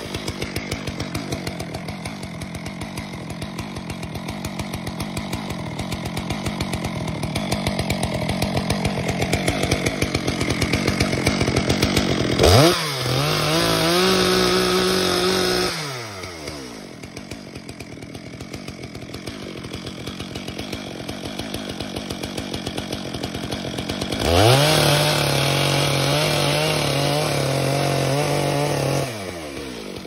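Two-stroke chainsaw idling, revved up to full speed twice for a few seconds, about halfway through and again near the end, falling back to idle each time.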